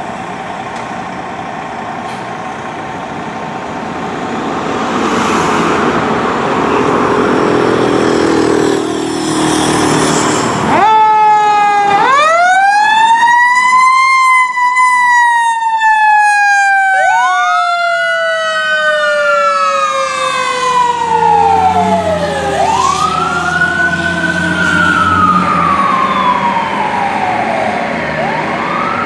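A 2003 Seagrave fire engine's diesel engine running and getting louder as the truck pulls out. About ten seconds in, its sirens come on: one sweeps up suddenly and then slowly falls in pitch, while a second rises and falls again and again over it.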